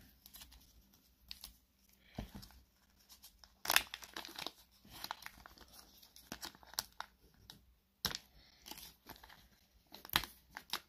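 Clear plastic wrapping on Pokémon trading cards being picked at and torn open by hand: irregular short crinkles and rips, the loudest rip about four seconds in.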